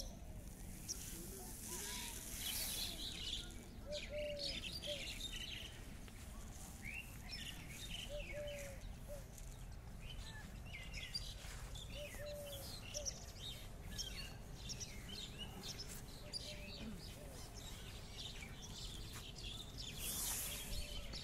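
Several birds chirping and singing, many short high calls overlapping, with a lower two-note call repeating about every four seconds over a steady background hiss.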